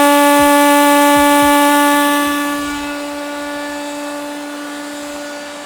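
Automatic tire deflator on a tire's valve stem tooting as the tire airs down: a steady whistle-like tone at one pitch, with a hiss of escaping air that fades after about two and a half seconds while the tone carries on more softly.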